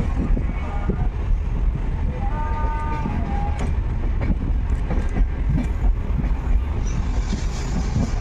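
Inside a moving passenger train carriage: a steady low rumble with the clatter of wheels over the track. A brief steady tone sounds about two seconds in.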